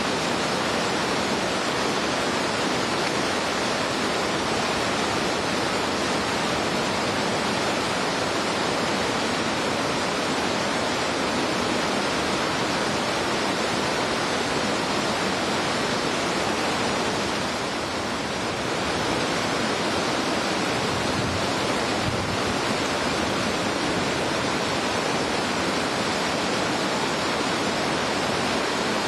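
Whitewater rapids of a fast stream, a steady, even rushing of water, dipping slightly about two-thirds of the way through.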